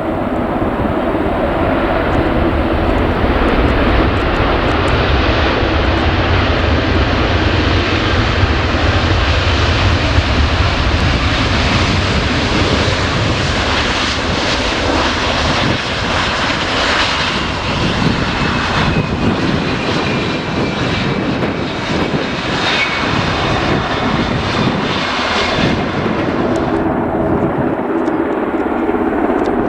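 Airliner's engines close by, a loud rushing noise building as it passes, with a whine that falls in pitch through the middle. The high end of the noise drops away suddenly near the end.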